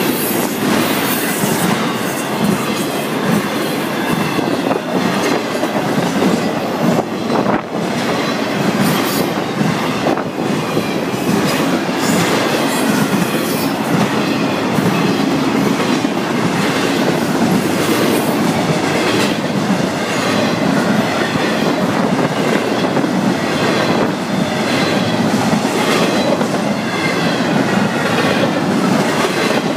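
Intermodal freight train's cars (trailers on flatcars and container well cars) rolling steadily past, a continuous rumble of wheels on rail with irregular clacks as the wheels cross the rail joints.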